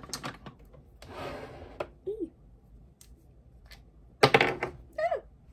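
Makeup items being handled and set down: a few clicks and knocks, a short rustle, and a loud clatter about four seconds in. Two brief pitched squeaks come through, one around two seconds in and one near the end.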